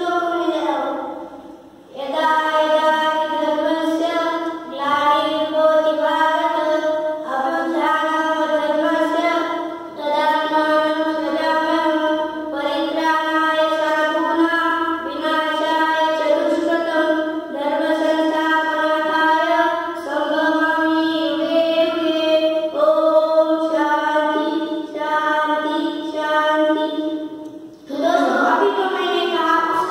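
Two boys singing together into microphones, a chant-like melody in phrases of long held notes with short breaths between them. The longest breaks come about two seconds in and near the end.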